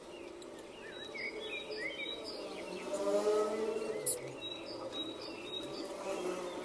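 Small birds chirping in short, quick rising and falling calls, in two similar runs a few seconds apart.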